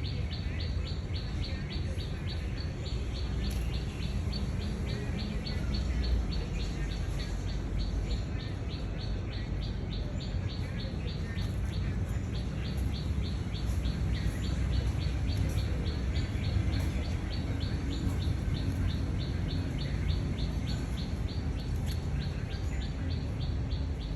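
A bird chirping the same short high note over and over, evenly spaced at about three to four a second, over a steady low rumble.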